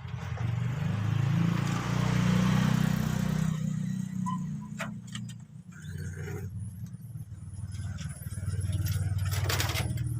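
Motor vehicles passing on a road: one goes by over the first few seconds and another from about six seconds in, with a few short clicks in the lull between them.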